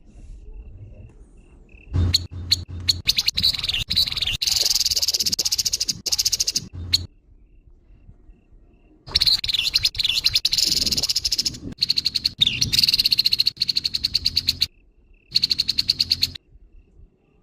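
Grey-headed babbler (tepus kepala abu) giving its harsh call: rapid, rasping chatter in three bursts, the first two several seconds long and the last short.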